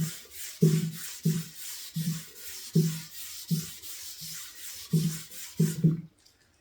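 Repeated back-and-forth rubbing strokes on a stripped wooden tabletop, about one and a half a second, as stain is wiped onto the wood by hand.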